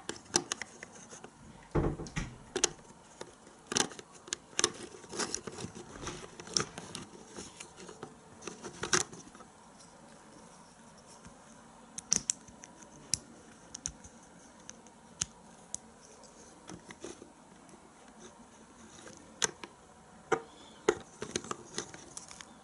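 Plastic Lego bricks clicking and clattering as they are handled and pressed together: a dense run of sharp clicks for the first nine seconds or so, then scattered single clicks.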